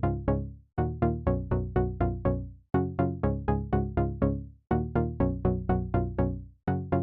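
Background electronic music: quick plucked synthesizer notes, each dying away, in phrases of about two seconds with short breaks between them.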